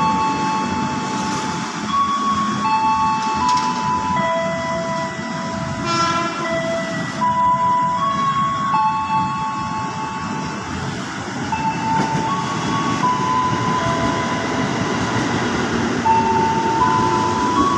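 A KRL Commuter Line electric train pulls in alongside the platform, its running rumble steady underneath, while a slow melody of clean held notes stepping up and down plays over it.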